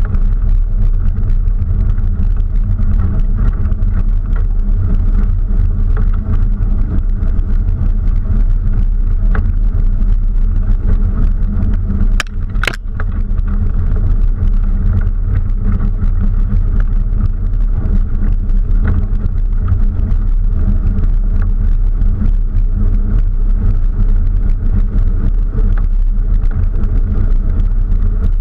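Open, doorless off-road vehicle driving over a rocky dirt track, picked up by a camera on its outside: a steady low engine and road rumble, with a couple of sharp knocks about twelve seconds in.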